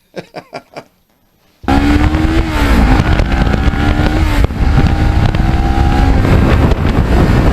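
Kawasaki Ninja 650R's parallel-twin engine running at speed under heavy wind rush, cutting in suddenly about a second and a half in. The engine note dips briefly a second later, then holds steady.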